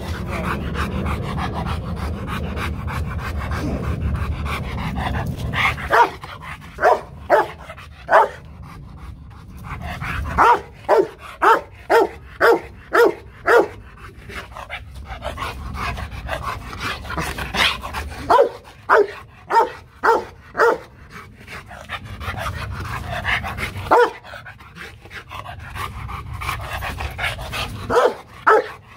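Rottweiler barking in bouts of short, loud barks, about two a second, starting a few seconds in and breaking off in pauses. These are playful bluff barks, not an attack bark.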